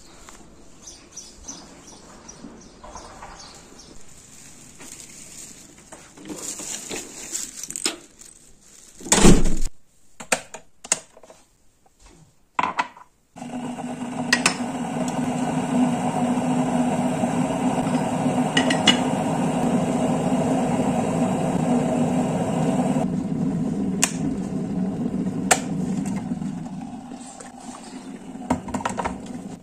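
Footsteps on paving stones, with one loud knock about nine seconds in. Then an electric kettle heating water gives a steady hiss and rumble for about ten seconds, under clinks of a glass coffee jar and a ceramic cup. Water is poured from the kettle into the cup near the end.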